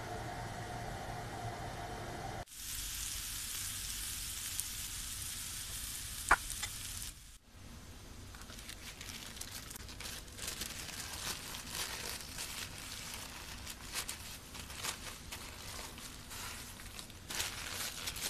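A shawarma wrap sizzling as it toasts on a grill pan, an even hiss with one sharp tap partway through, after a steady hum in the first couple of seconds. After a cut, paper crinkling and rustling with many small clicks as the wrap is rolled up in paper.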